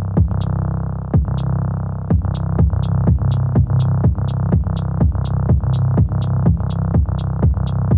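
Instrumental electronic hip-hop beat: drum-machine hits about twice a second over a steady synth bass, with no vocal.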